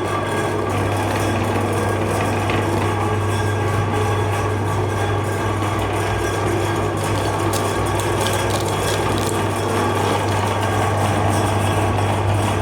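Electric meat grinder running steadily, its motor giving a strong low hum under an even grinding noise.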